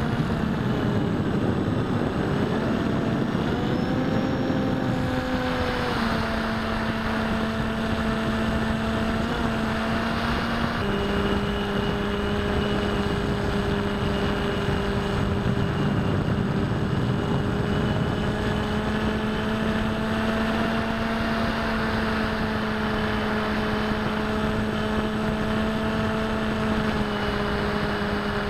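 Electric motor and pusher propeller of a Bixler v1.1 foam RC plane in flight, recorded by the onboard camera: a steady hum whose pitch steps down and up a few times with throttle changes, over wind rush. The rush is strongest during the first several seconds.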